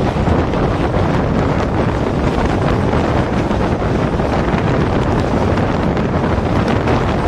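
Wind buffeting the microphone held out of a moving passenger train, over the steady running noise of the train on the rails. The rush is loud and even, with no break.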